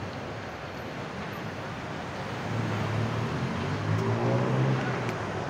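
City street traffic: a steady wash of road noise, with a motor vehicle's engine hum coming up about halfway in as it passes close.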